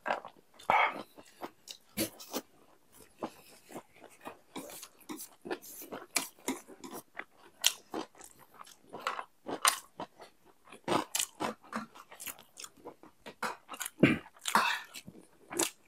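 Close-miked eating: chewing, biting and crunching of food, with many irregular short smacks and mouth clicks, a little louder near the end.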